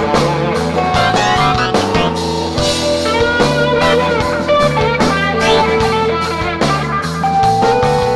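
Live rock band playing an instrumental passage: an electric guitar holds and bends long lead notes over bass and a steady drum-kit beat.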